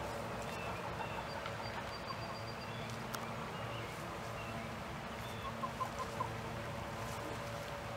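Blue Partridge English Orpington chickens clucking a few short times, in a quick cluster a little past halfway, over a steady outdoor background.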